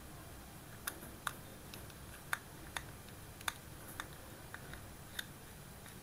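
Small screwdriver unscrewing the body screws of a baitcasting reel's plastic frame: light, sharp clicks at irregular intervals, about nine in all, as the metal tip and screw tick against the frame and the hands shift the reel.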